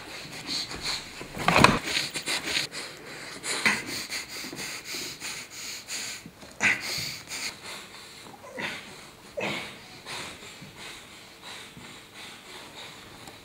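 A person sniffing and breathing hard in short, irregular bursts, the loudest near the start.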